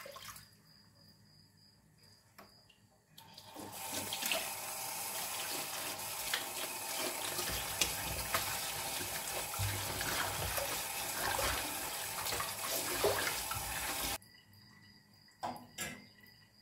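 Running water splashing as a bunch of wild ak sirken (goosefoot) greens is rinsed. The water starts about three seconds in, runs steadily, and stops suddenly a couple of seconds before the end.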